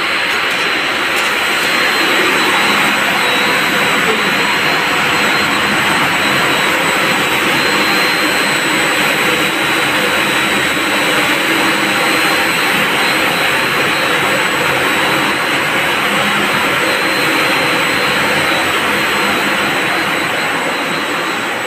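Loud, steady rushing drone of machinery running in a pump room, with a thin high whine above it.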